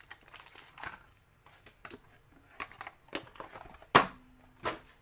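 Light scattered clicks and rustles of small objects being handled on a table, with a sharper click about four seconds in and another a little after.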